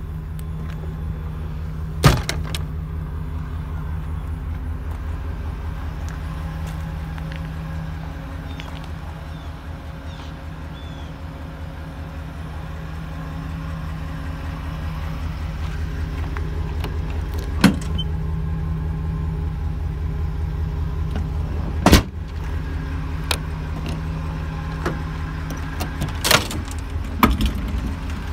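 A 2010 Ford E-350 service truck's engine idling with a steady low pulsing rumble. Over it come several sharp metal clunks from the utility body's doors and compartment latches: about 2, 18 and 22 seconds in, and twice near the end.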